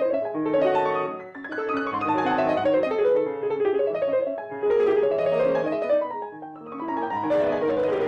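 Grand piano played solo: a flowing passage of struck notes and chords that ring and die away, moving in phrases that ease off briefly about a second and a half in and again near the end.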